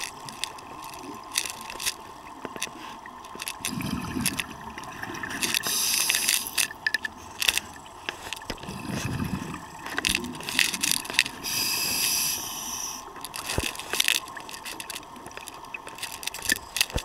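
Handling noise from a camera in an underwater housing: scattered clicks and scraping, with two longer stretches of hiss.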